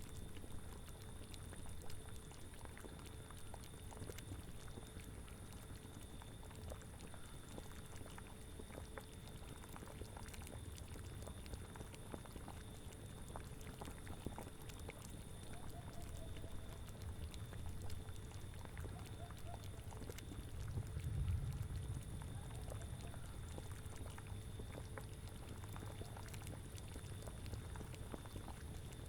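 Cauldron bubbling at a steady boil, with many small pops, over a low rumbling wind that swells about two-thirds of the way through.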